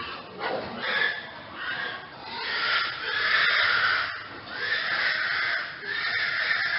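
Pig squealing: short squeals at first, then longer harsh squeals of about a second each, one after another.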